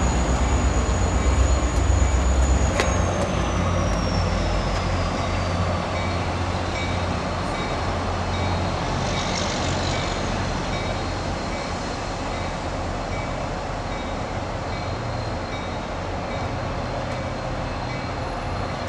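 Diesel passenger train with a heavy low rumble for the first few seconds, cut off abruptly. Then an MBTA commuter rail train rolls in toward the platform with a steady, gradually easing rumble.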